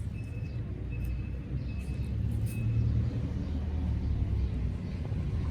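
Steady low outdoor rumble of background noise, swelling slightly a couple of seconds in, with faint short high tones repeating about once a second.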